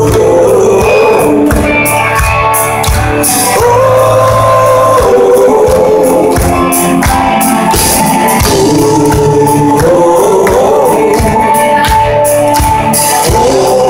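Rock band playing live, electric guitars, bass and drums under long held group vocals, loud, heard from within the crowd through a phone's microphone.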